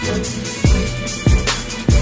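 Hip hop backing music with a steady drum-machine beat: deep kick drums that drop in pitch, and sharp hits between them.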